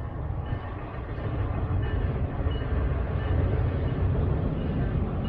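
Freight train rumbling slowly past, growing louder about a second in, with a few faint short high squeals from the wheels.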